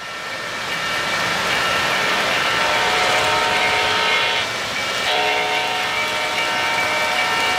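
Three-rail O-scale model trains, a Lionel PRR K-4 with mixed freight and a K-Line passenger train, running past on the track: a steady rushing of wheels on rail. Several held high tones sound over it and drop out briefly about four and a half seconds in. The sound fades up at the start.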